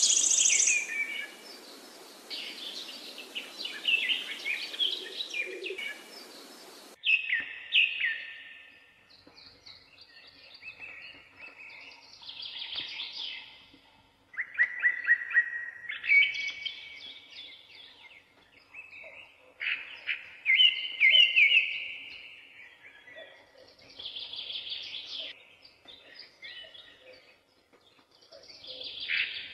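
Songbirds singing: short phrases of quick, bright notes repeated every few seconds. For the first several seconds a steady hiss runs under them and cuts off suddenly.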